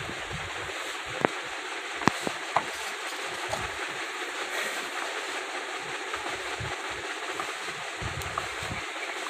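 Hands squeezing and crumbling a dry, crumbly flour feeder-bait mix in a plastic bowl: soft irregular thumps and rustling over a steady hiss, with a few sharp clicks in the first few seconds.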